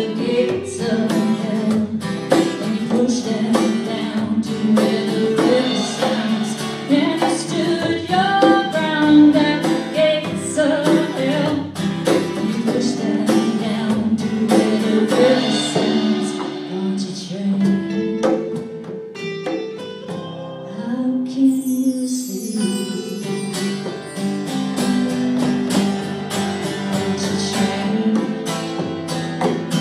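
A small live acoustic band playing a song: a woman sings lead over acoustic and electric guitar, with a steady hand-played percussion beat.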